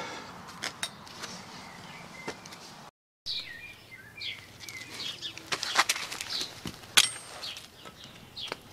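Small birds chirping in short falling calls, over scattered sharp taps and clinks of metal being handled, the loudest a single sharp knock late on.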